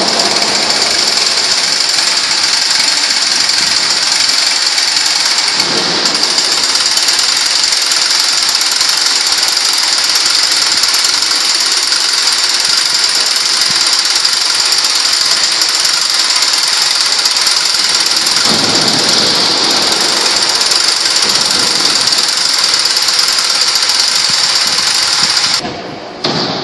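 Large hand-held power tool running continuously, a loud steady machine noise with a strong hiss; it stops near the end.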